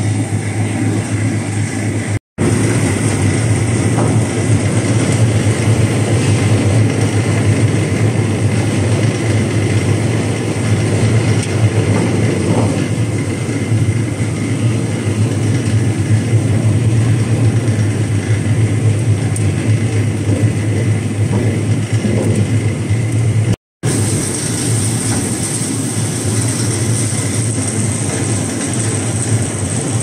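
Carrot brush washing and peeling machine running with its feed elevator: a steady, loud mechanical hum from the motors and rotating brush rollers, mixed with the hiss of water spraying onto the carrots. The sound cuts out for an instant twice.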